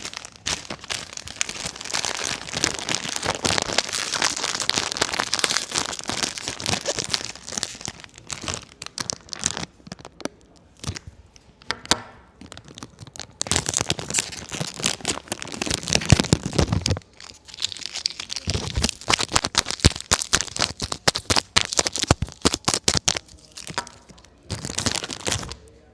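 Blind-box packaging being opened by hand: a plastic wrapper crinkling and tearing with many small crackles, in irregular handling bursts with a couple of brief pauses.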